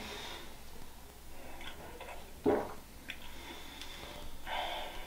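Quiet small-room tone with a few faint ticks and one sharp knock about two and a half seconds in, followed near the end by a brief soft noise.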